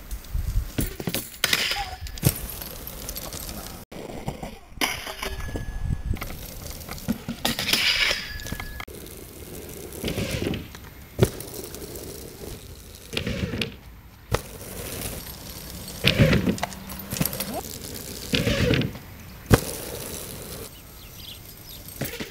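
Mountainboard riding: the board's wheels rolling over grass and the board knocking and grinding on a metal rail and kicker ramp, with a few sharp knocks from landings or impacts.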